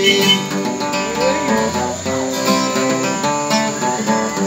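Acoustic guitar played solo: plucked single-note runs and strummed chords, an instrumental break between sung lines of a country-style song.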